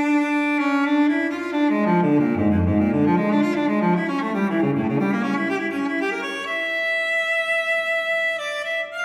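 Background instrumental music, slow, with long held notes.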